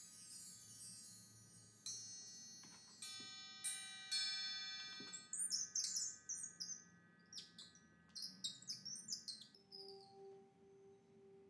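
Quiet soundtrack of struck chimes ringing out one after another, then a flurry of short high chirps, and near the end a single steady, gently pulsing tone.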